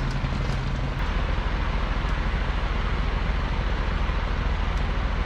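Engine running steadily with a low, even pulsing hum. One low tone drops out about a second in while the rest keeps going.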